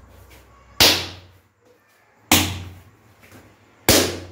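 Dough being kneaded by hand on a kitchen countertop: three heavy thuds about a second and a half apart as the dough ball is pushed and slapped down onto the counter.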